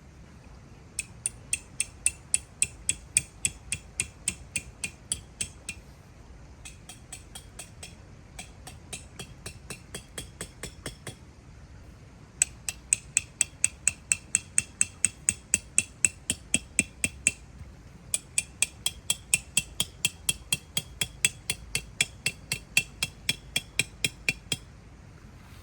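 A hammer striking metal in quick, sharp, ringing blows, about three a second, in four runs separated by short pauses. The second run is softer than the others.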